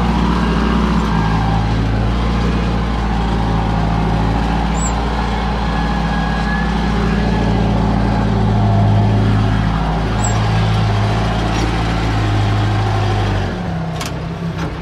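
Case 580 backhoe loader's engine running steadily under working load, heard from inside the cab. Its note drops slightly near the end.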